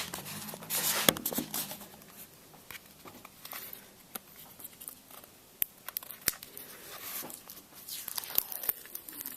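Thin Mylar protective film being peeled and handled, crinkling and tearing softly in irregular bursts, with a few sharp clicks along the way.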